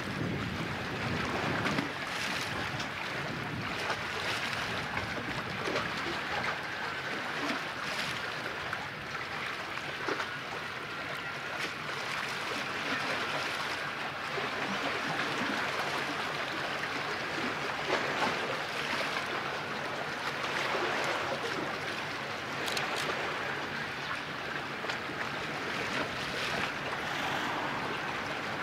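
Steady wash of sea waves with wind, broken by a few short splashes.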